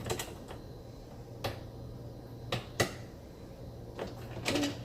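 Sharp plastic clicks and knocks, a few single ones spread out and a quick cluster near the end, as a stopper clip is worked onto the end of a dishwasher rack's track, over a low steady hum.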